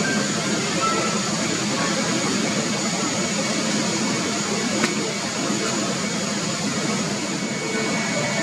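Steady jet airliner noise, an even hiss over a low hum, with one faint click about five seconds in.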